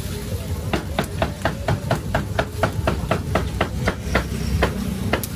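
Cleaver chopping roast meat on a chopping block: quick, even blows about four a second, slowing near the end to a last stroke or two.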